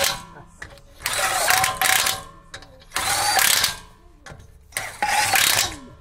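Cordless impact wrench running lug nuts onto a wheel in three short bursts, each with a motor whine and a hammering rattle, moving from nut to nut.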